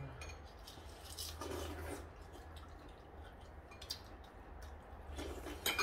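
Eating at a table: scattered light clicks of chopsticks against dishes over a low steady hum, with a sharper click near the end.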